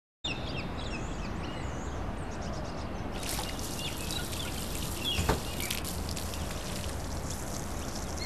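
Outdoor ambience: a steady background hiss with small birds chirping, and a single brief knock about five seconds in.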